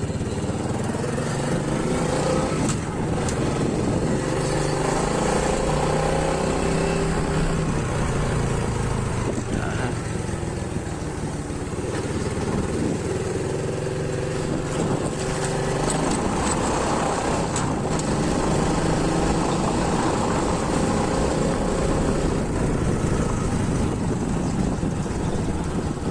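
A motor vehicle engine running steadily, its pitch drifting up and down a little, over a continuous rushing noise.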